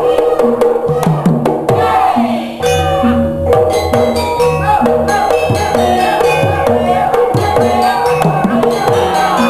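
Percussion-led folk music: drums struck in a steady rhythm, their deep notes sliding down in pitch, under ringing pitched tones.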